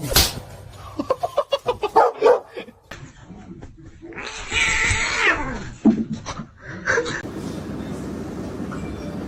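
A pet animal calling: a run of short calls, then one louder, longer call about halfway through.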